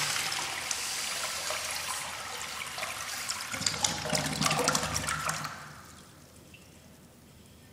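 American Standard Washbrook urinal flushing: water rushing through the bowl from the flush valve, dying away about five or six seconds in.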